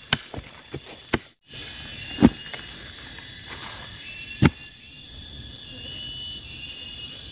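Steady, high-pitched drone of a jungle insect chorus, with a few sharp knocks, the clearest about two and four and a half seconds in. The drone cuts out briefly about a second and a half in.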